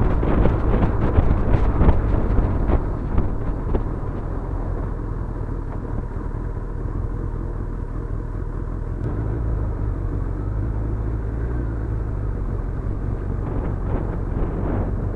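Motorcycle being ridden, heard from a camera on the bike: gusty wind noise on the microphone for the first few seconds, then a steadier low engine rumble as the bike slows down.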